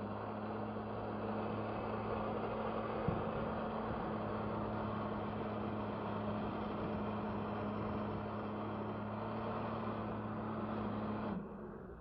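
Jet ski engine held at high throttle, a steady drone, pumping water up the hose to a flyboard, with the rush of the water jets. A single short knock comes about three seconds in. Near the end the throttle is cut and the engine drops back.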